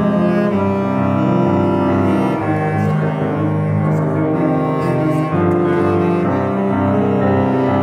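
Bass clarinet playing a slow melody of low, sustained notes, accompanied by a Steinway grand piano, with a brief break in the line about five seconds in.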